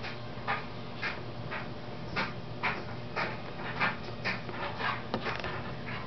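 Rhythmic panting: short breathy puffs about two a second over a steady low hum.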